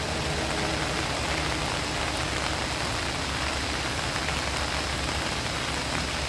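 Steady hiss of rain, with a low truck engine drone faintly underneath.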